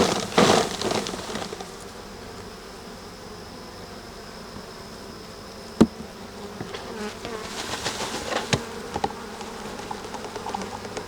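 Swarm of honeybees buzzing steadily, with loud knocks at the start as a frame of bees is shaken down into a container, a single sharp knock about six seconds in, and rustling and tapping later as the bees are scooped with a measuring cup.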